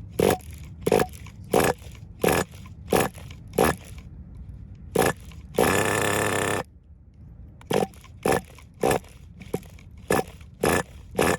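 Team Associated NTC3's nitro engine blipped in short, evenly spaced bursts about every two-thirds of a second, with one longer burst of about a second just past the middle, as the two-speed is tested after a shift-point adjustment. The owner suspects a fault in the transmission or clutch.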